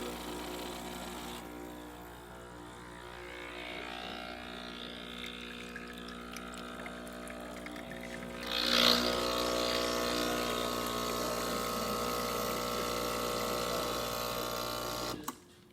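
Breville Barista espresso machine's vibratory pump humming steadily as it pulls a test shot, with a short hiss a little past halfway after which it runs louder, then switching off just before the end. The shot runs after the buzzing solenoid valve was replaced, and the machine is working correctly.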